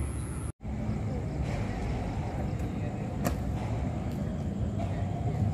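Outdoor night ambience of a town square: a steady low rumble of distant road traffic. The sound cuts out for an instant about half a second in, and there is a single sharp click about three seconds in.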